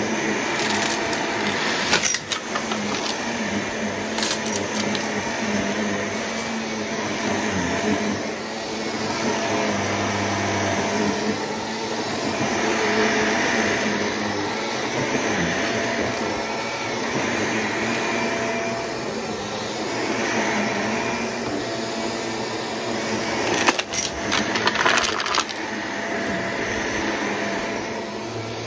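Upright vacuum cleaner running steadily over carpet. Small sparkly debris crackles and rattles as it is sucked up, in short bursts about two and four seconds in and again for a couple of seconds near the end.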